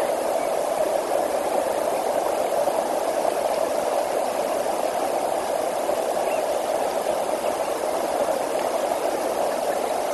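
Steady rushing of flowing river water, an even noise with no breaks.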